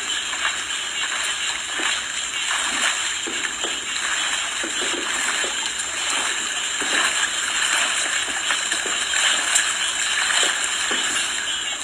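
A swimmer's strokes splashing irregularly in a swimming pool, over a steady hiss of water.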